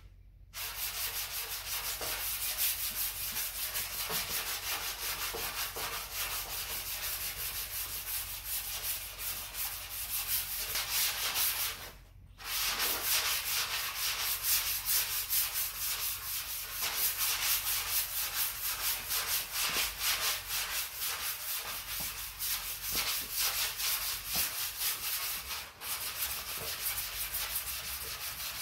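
Hand block-sanding of 2K high-build primer on a car fender with 400-grit paper: quick back-and-forth strokes making a steady rasping hiss, leveling the primer and feathering its edges. The sanding stops briefly about twelve seconds in.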